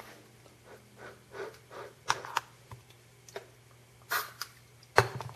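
Handling noises from a homemade hairspray-fuelled BB gun being readied to fire: a few scattered clicks and knocks, a brief hiss about four seconds in, and a sharp click near the end, over a steady low hum.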